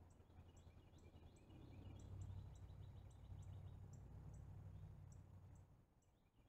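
Faint outdoor ambience: small birds chirping in short twittering runs, with a faint high ticking about two or three times a second, over a low rumble that drops away near the end.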